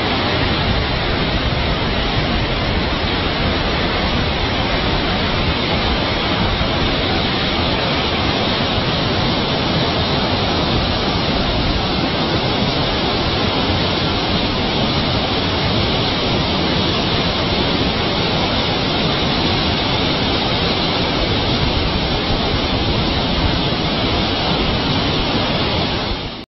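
Steady, loud rush of water pouring through a sluice channel, fading out at the very end.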